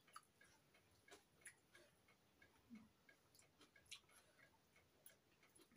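Near silence, with faint irregular clicks of a knife and fork against plates.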